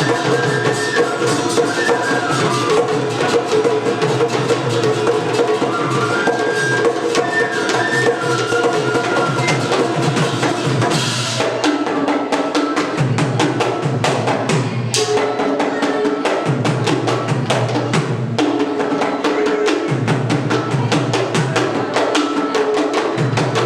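Orchestra playing Assamese-style music, with drums and percussion keeping a steady beat under a melody line. About halfway through, the high melody drops away and the music moves to a lower, repeating pattern.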